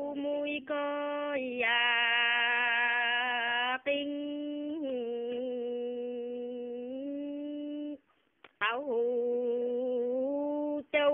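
An elderly woman's voice singing a Dao folk song unaccompanied, in long, slowly held notes that bend gently in pitch, with a short pause for breath about eight seconds in.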